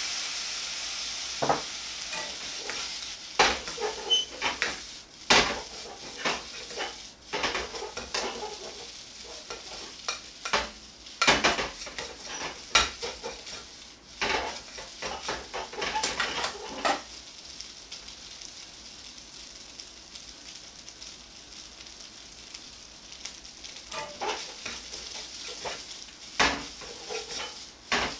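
Fried rice sizzling in a hot wok, with a burst of hissing at the start as soy sauce is poured down the hot side of the pan. A steel ladle then scrapes and clanks against the wok as the rice is stirred and tossed. The clanking stops for several seconds in the second half and starts again near the end.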